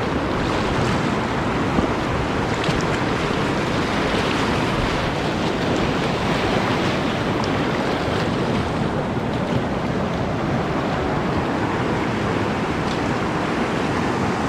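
Whitewater rushing steadily through a river rapid, an even, unbroken noise with a few faint ticks.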